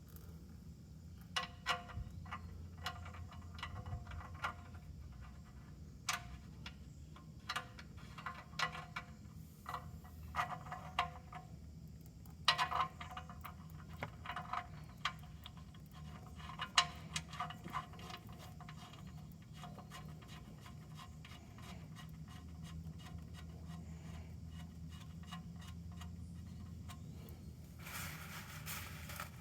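Metal hand tools clinking and clicking on metal, irregular sharp taps that ring briefly, thickest in the first half and sparse near the end, over a low steady hum.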